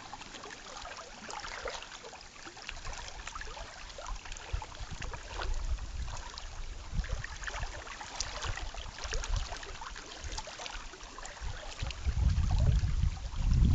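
Small waves lapping and splashing in irregular little slaps, with wind buffeting the microphone in a low rumble that comes in gusts and grows strong near the end.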